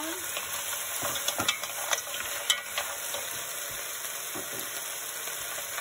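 Clams, mussels, corn and vegetables sizzling in oil in an enamelled pot while being stirred with a wooden spoon: a steady sizzle with a few sharp clicks from the stirring.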